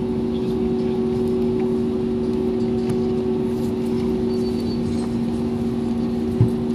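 Steady drone inside an airliner cabin on the ground before take-off, with two steady hum tones running under it. A short low thump comes near the end.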